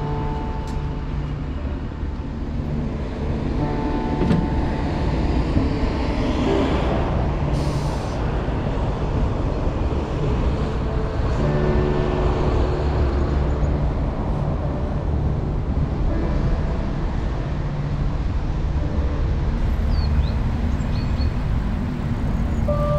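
Steady low rumble of road traffic and wind on the microphone while riding along a street, with short faint tones from passing vehicles.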